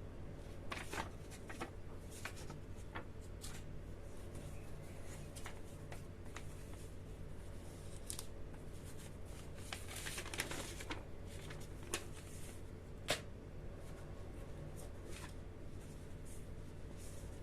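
Packaging being handled during an unboxing: scattered light clicks, taps and rustles over a steady low hum, with a longer rustle about ten seconds in and two sharp clicks a little later.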